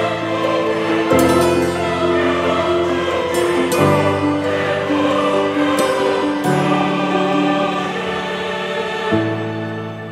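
Background music of slow, held chords over a bass line, changing about every two and a half seconds.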